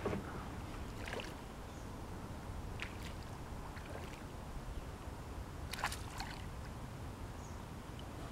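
A few light splashes and small knocks at the kayak's side, the loudest about six seconds in, over a steady low rumble.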